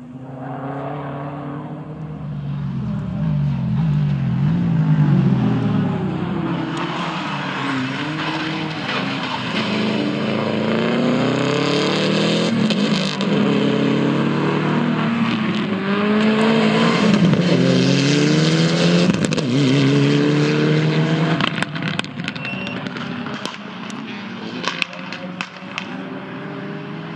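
Subaru Impreza rally car's engine revving hard through the gears as it approaches and passes, the pitch climbing with each gear and dropping at each shift and braking, loudest in two stretches before fading away. Sharp cracks ring out now and then, most of them as the engine note fades near the end.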